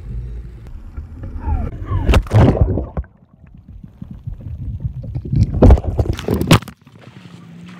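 Water splashing and gurgling right at the microphone, with two loud bouts of splashing, about two seconds in and again near six seconds.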